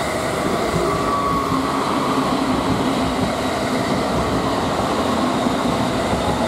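JR East E217 series electric multiple unit, fitted with Mitsubishi IGBT-VVVF inverter drive, passing through a station at speed: a steady, loud run of wheels on rail, with the hum of its traction motors.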